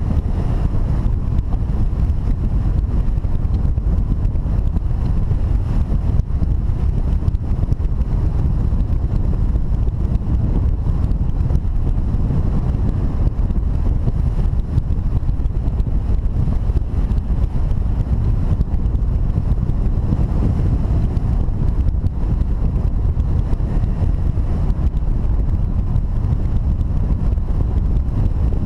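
Wind rushing over a hang glider in flight, buffeting the microphone of the camera mounted on its wing: a low, steady rumble.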